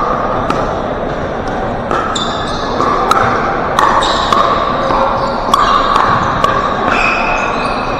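Pickleball paddles striking the hard plastic ball in a rally, giving sharp pocks at irregular gaps of about half a second to a second. Short squeaks from sneakers on the hardwood court come in between the hits.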